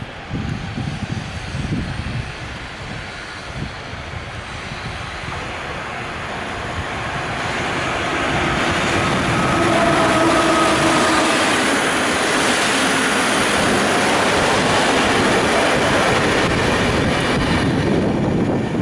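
Pesa Griffin electric locomotive with an InterCity train running into the station and past along the platform: wind buffets the microphone at first, then the rush of wheels on rail swells and holds loud as the locomotive, with a brief whine from its drive, and the coaches go by. The sound drops away near the end.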